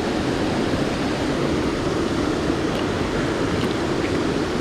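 Mountain stream water rushing steadily over rocks, with a few faint light ticks about three to four seconds in.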